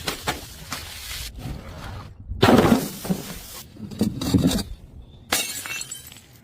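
Glass bottles shattering in a series of separate crashes, the loudest about two and a half seconds in. Near the end there is a last smash with a high tinkling ring of glass.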